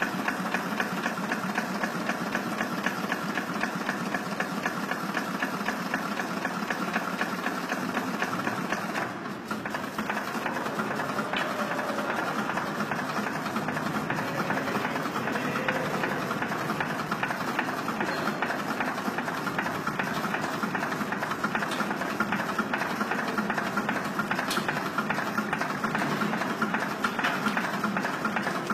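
A mill steam engine's barring engine running on compressed air, turning the main engine over: a rapid, even mechanical clatter.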